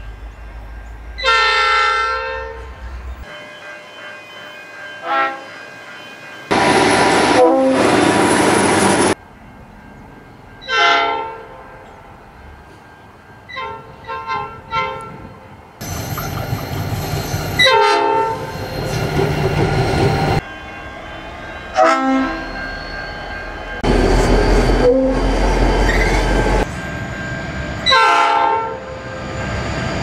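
Diesel locomotive horns, among them Pacific National 81 class 8148's, sounding a string of long and short blasts. Between the blasts comes the loud rumble and wheel noise of passing locomotives and wagons, which starts and stops abruptly from clip to clip.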